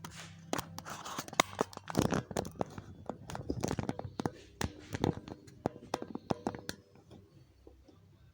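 Irregular clicks, knocks and scraping of hands and tools working on a BMW 3.0-litre diesel's intake manifold to move it aside, dying down about seven seconds in.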